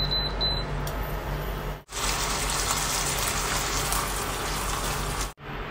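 Stock and vegetables sizzling and bubbling in a hot frying pan as the sauce is stirred. It is a steady hiss, broken by two brief gaps.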